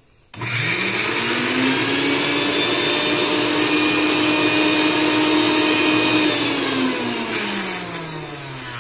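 Electric mixer grinder (mixie) switched on, its motor whining up to speed and running steadily as it grinds roasted pigeon peas, dried red chillies, garlic and coconut into a chutney with almost no water. About six seconds in the whine falls in pitch and fades as the motor winds down.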